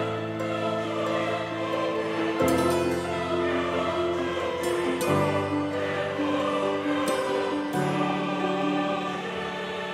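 Background music with choral voices holding sustained chords, changing chord about every two and a half seconds.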